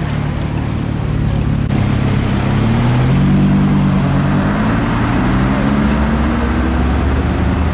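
Car engine running and then accelerating, its pitch rising in two climbs over a low steady drone.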